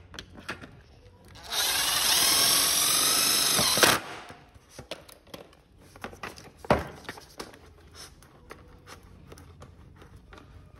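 Makita cordless drill running steadily for about two and a half seconds, then stopping as it works on the plastic duct fitting. Afterwards, scattered light clicks and one sharper knock as the metal damper blade is turned and handled inside the fitting.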